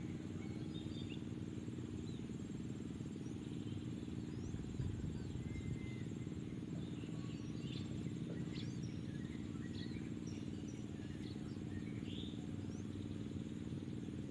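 A steady low hum of background noise, with faint, scattered short bird chirps and slurred calls dotted through it.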